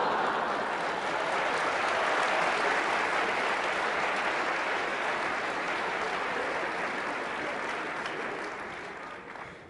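Audience applauding in a large hall: a steady wash of clapping that swells in, holds, and tapers off near the end.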